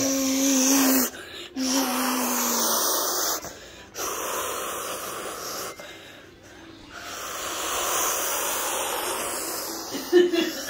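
A child's mouth-made jet-engine noise for a toy airplane: long breathy whooshes in four stretches with short breaks for breath, the first with a hummed tone under it that sinks slightly at its end. A short voiced squeak near the end.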